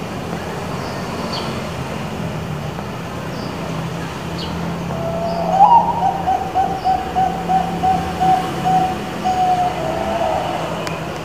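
Zebra dove (Bangkok-type perkutut) singing once, starting about halfway through: a sharp rising opening note, then a run of quick repeated coos, about three a second, ending in a longer note. A steady low rumble runs underneath.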